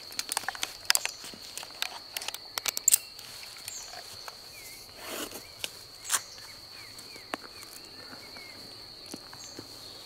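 Crickets chirring in a steady high, unbroken tone. Over it come close rustling and sharp clicks of gear being handled and moved over grass, busiest in the first three seconds and again briefly around five to six seconds in.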